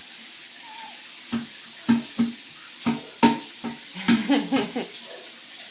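A toddler's barking croup cough, five sharp coughs in a row and then a quicker run of voiced, hoarse coughs about four seconds in, over the steady hiss of a running shower.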